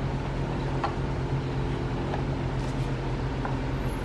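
Steady low mechanical hum from a running machine, unchanging in pitch, with a few faint light clicks.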